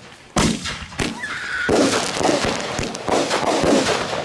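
Aerial fireworks going off: two sharp bangs in the first second, a short whistle, then a dense run of rapid popping bursts.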